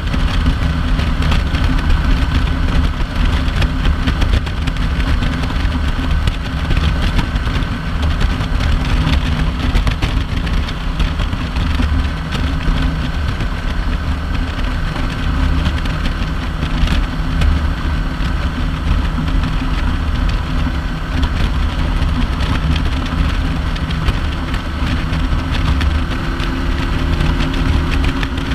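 Kawasaki Vulcan 900 LT's V-twin engine running steadily at highway cruising speed, heard from the handlebars with a steady rush of wind and road noise.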